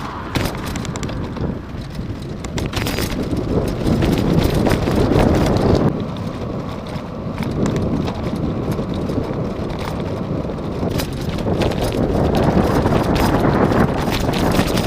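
Irregular crunching on loose ground under a steady rumble, with wind buffeting the microphone.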